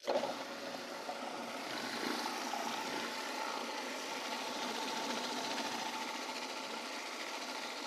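Countertop food processor motor switched on and running steadily with a whine, blending a thick tahini dip while olive oil is added through the feed tube.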